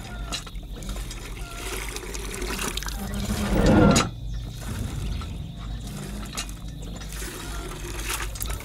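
Water gushing from a hand pump's spout and splashing into a plastic bucket. A loud rushing swell builds about halfway through and cuts off suddenly.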